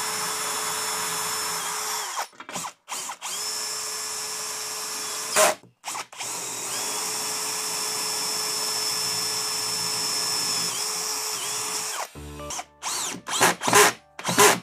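Cordless drill running into the wall in three long, steady runs with short pauses between, then a few sharp knocks near the end.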